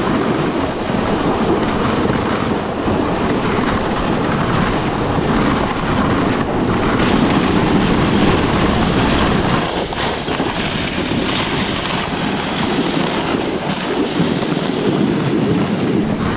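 Plastic sled sliding downhill over packed snow: a loud, steady scraping hiss of snow under the sled, mixed with wind buffeting the microphone.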